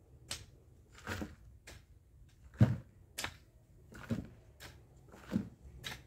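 Long-handled hoe chopping into garden soil: a run of separate strikes, some dull thuds and some sharper clicks, about one or two a second, the loudest about two and a half seconds in.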